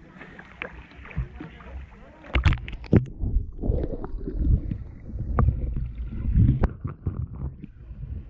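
Water lapping and splashing against a camera held at the surface, with small splashy ticks; about two seconds in it goes under, and heavy muffled underwater sloshing with sharp clicks and low thumps takes over.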